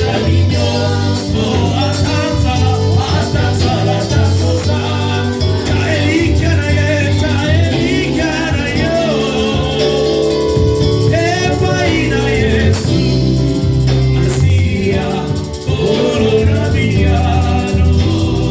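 Gospel worship music: voices singing over a band with a strong bass line.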